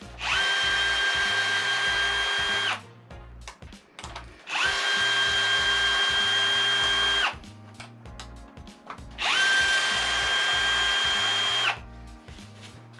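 Cordless drill driving a socket on the cam case bolts of the engine head, run in three bursts of about two and a half seconds each. Each burst is a steady whine that rises quickly as the motor spins up and stops abruptly, with pauses between.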